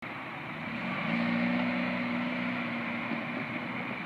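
Street traffic: a car driving over the crossing, its steady engine hum swelling in the middle and easing off toward the end.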